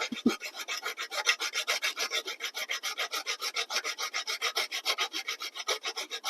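A hand file rasping back and forth in quick, even strokes, about six or seven a second, as a part is filed down flat.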